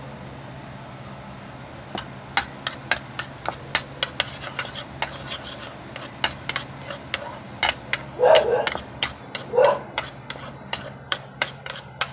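Metal spoon clicking against a ceramic bowl while stirring a thick sauce, about four quick taps a second, starting about two seconds in. Two short vocal sounds break in past the middle.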